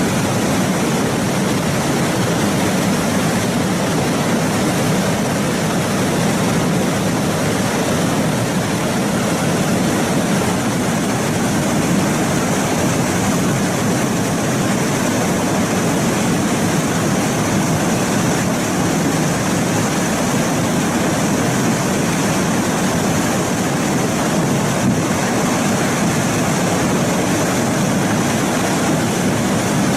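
Steady rushing noise of a flash-flood torrent, unbroken and even in level throughout.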